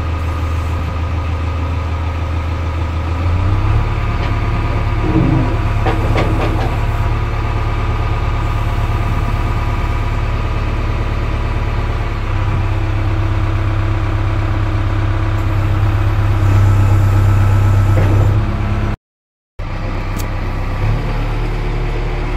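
JCB 3DX backhoe loader's four-cylinder diesel engine running, heard from the cab. The engine note rises about three seconds in as the machine is worked, with a few metal clanks soon after, and the sound cuts out for about half a second near the end.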